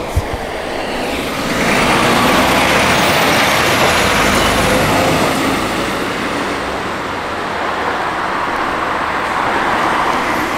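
Heavy grab-hire tipper lorry with a loading crane driving past close by, its engine and tyre noise swelling about a second and a half in and easing a little later on, with other road traffic.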